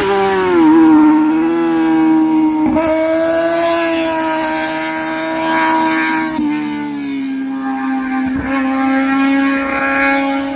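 Sport motorcycle's inline-four engine with a sporty aftermarket exhaust, screaming at high revs through a corner. The pitch dips about half a second in and again about six seconds in, with two brief breaks near three and eight and a half seconds that sound like quick gear changes.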